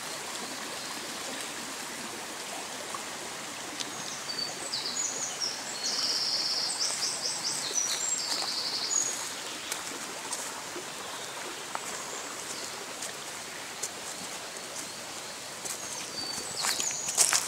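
Shallow mountain stream running over rocks: a steady rushing hiss. A small songbird sings bursts of high chirping notes from about four to nine seconds in, and again near the end.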